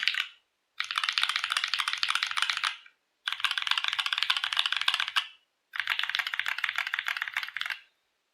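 Fast typing on a NovelKeys NK65 mechanical keyboard with an aluminium plate and lubed Durock Koala tactile switches under dye-sub keycaps: rapid keystroke clicks in three bursts of about two seconds each, with short pauses between, stopping near the end.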